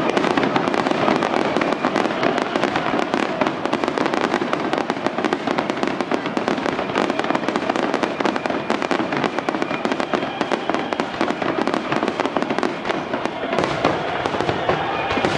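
Fireworks display going off in a dense, continuous barrage, with many bangs and crackles overlapping in quick succession.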